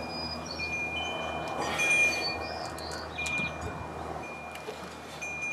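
Wind chimes ringing with several clear metallic tones, one high note sounding again and again and lingering. A few faint clicks come from a hand tap being turned into steel.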